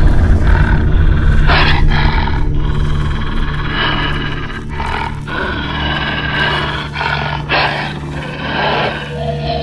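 Spirit Halloween Limb Ripper werewolf animatronic playing its recorded werewolf growls and snarls through its speaker, a string of rough bursts over a steady low drone.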